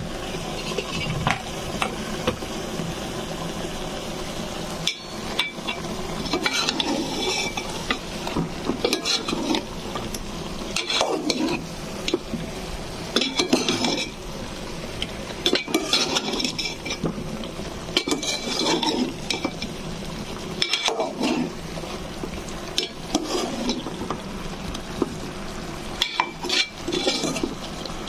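Metal spoon stirring and scraping spice-coated taro chunks in a metal pot as they fry in oil, over a steady sizzle. The scraping strokes come in short bursts every two to three seconds.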